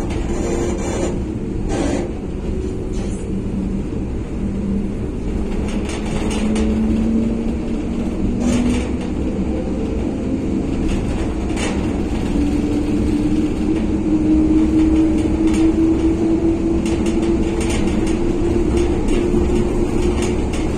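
Interior running noise of a 1963 PaFaWag EN57 electric multiple unit: a steady low rumble with a faint whine that slowly rises in pitch as the train speeds up. Occasional short knocks come from the wheels passing over rail joints.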